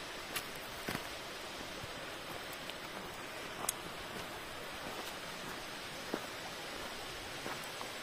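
Steady rush of a waterfall and the shallow rocky stream below it, with a few faint clicks.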